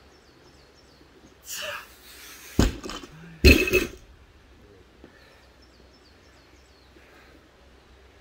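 A loaded barbell with bumper plates hitting the ground twice about a second apart, a heavy thud and then a louder clanking impact with a brief metallic ring, after a sharp exhale of effort. Birds chirp faintly.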